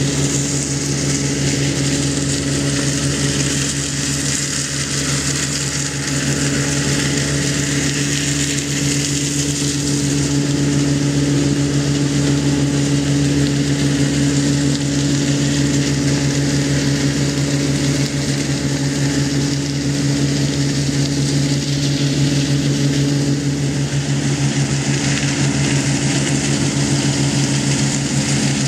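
Hazelnut harvesting machinery running steadily: a constant engine hum under a broad rushing noise.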